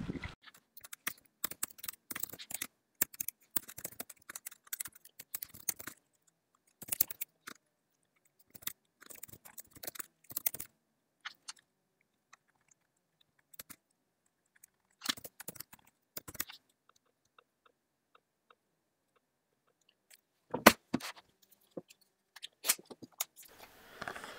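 Irregular clicking and crunching noises in scattered clusters, separated by quiet gaps.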